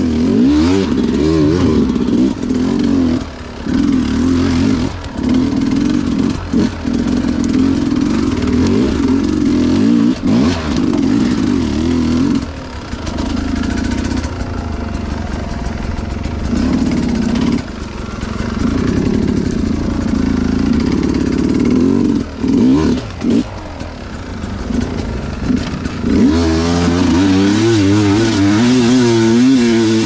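300 cc two-stroke dirt bike engine revving up and down under constant throttle changes, with short drops in between. Near the end the revs rise and fall hard and fast.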